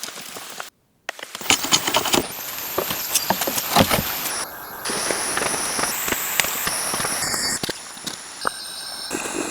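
Hand woodworking: sharp knocks, taps and scraping of tools on wood, in short segments that change abruptly, with a brief silent gap about a second in.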